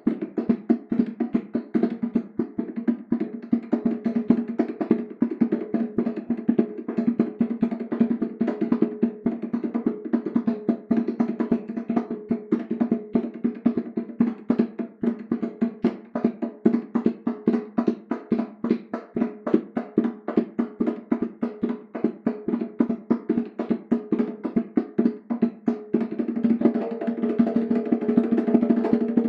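Bongos played by hand in a fast, unbroken stream of strikes, with two drum pitches, one low and one higher, ringing throughout. Near the end the strikes run together into a roll.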